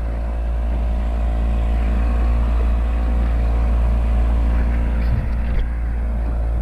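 Boat motor running at a steady speed under way, a continuous even drone with a low hum, with water and wind noise mixed in.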